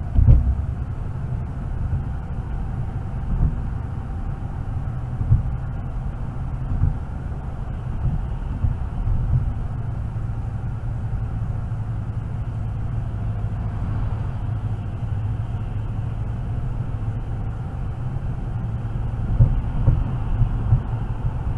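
Car cabin road and engine noise picked up by a windscreen dashcam while driving: a steady low drone, with a few short thumps and several close together near the end.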